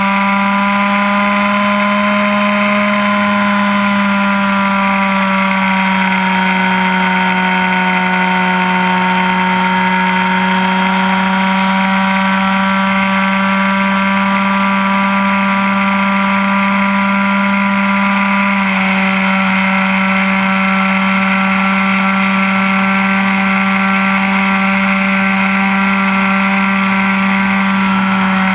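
ASP 61 two-stroke glow engine of an RC plane running at high throttle, heard up close from just behind it: a loud, steady, high-pitched buzz whose pitch wavers slightly and steps down a little about two-thirds through.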